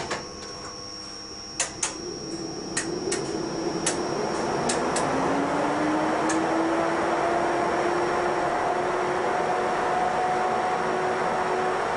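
Cooling fans of a DB class 140 (E 40) electric locomotive spinning up. A few sharp clicks come in the first seconds, then a rushing hum swells and rises in pitch about four to five seconds in, and settles into a steady run.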